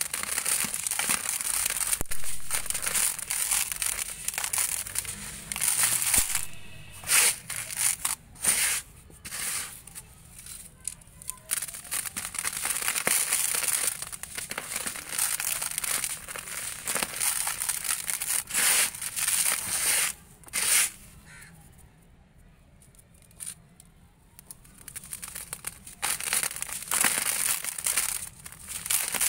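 A dry sand-cement lump crumbling in the hands, its grit grinding and crackling as it breaks and sifts down into the dust. It comes in uneven surges, with a quieter spell a little after the middle.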